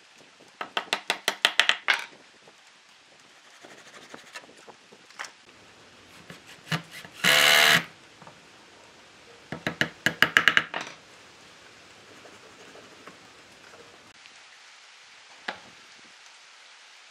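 Two quick runs of light knocks on wood, about eight a second, with a brief half-second whir of a small power tool between them.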